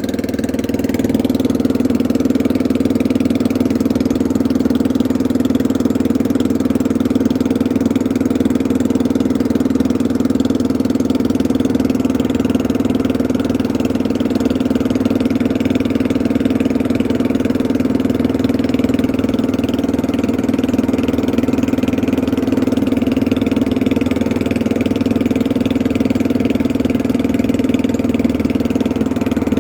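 Small fishing boat's engine running steadily at an even speed, a constant loud hum.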